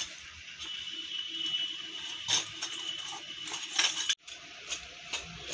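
Miniature stainless steel toy pots and bowls clinking together as hands rummage through them in their bag, with sharper clinks about two and four seconds in.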